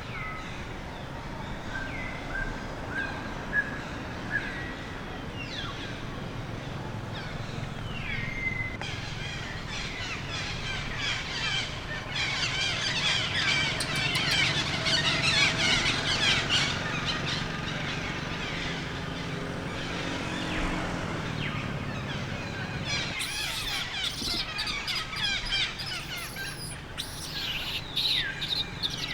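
Many short, high-pitched chirping and squealing calls with falling pitch, thickest about halfway through and again near the end, over steady outdoor background noise.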